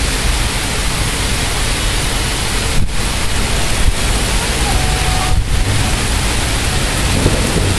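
Heavy thunderstorm rain pouring down, a loud dense steady hiss, with wind rumbling on the microphone.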